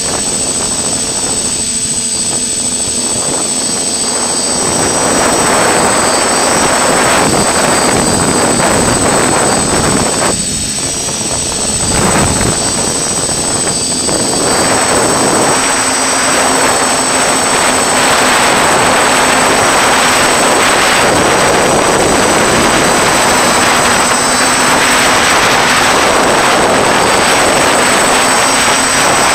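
FPV quadcopter's electric motors and propellers running, heard through the drone's own camera microphone as a steady whine with a rush of propeller noise. It eases off twice in the first half, then holds steady.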